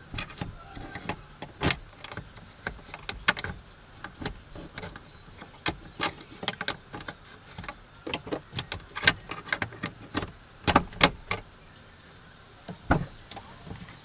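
Irregular plastic and metal clicks and knocks of a paint-can opener hook being worked against a Smart ForTwo's broken tailgate latch from behind, to release the tailgate. The loudest is a cluster of sharp knocks about ten to eleven seconds in, with another near the end.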